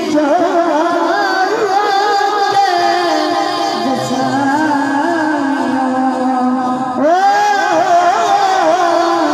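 A boy's solo voice singing a Punjabi naat (devotional song) through a microphone and PA system, the melody wavering and ornamented over steady held tones, with a new phrase starting about seven seconds in.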